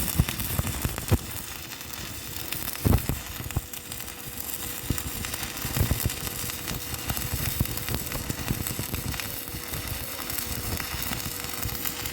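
Stick welding arc from a 3.2 mm E6013 rod at 80 amps, crackling and sizzling steadily with louder pops now and then. A faint steady hum runs underneath.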